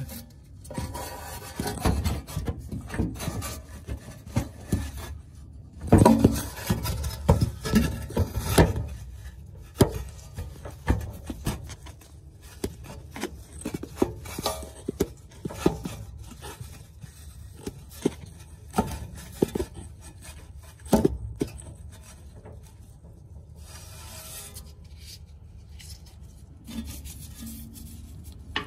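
Irregular rubbing, scraping and knocking of a hand-held camera being handled and repositioned under the car. It is busiest in the first third and grows sparser and quieter toward the end, as the view settles.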